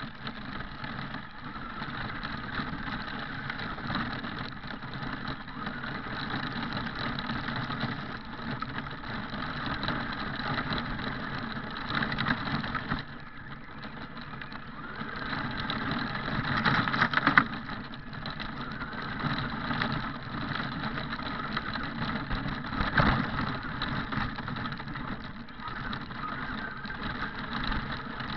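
Radio-controlled truck driving over gravel and slush, heard from a camera mounted on its own body: steady motor and drivetrain noise with the tyres crunching through grit, and a few sharp knocks, the loudest about seventeen seconds in.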